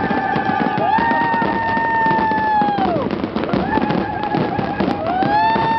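Fireworks display going off continuously, a dense crackle of pops and bangs with several long whistles overlapping, each sliding up in pitch, holding for a second or two, then dropping away.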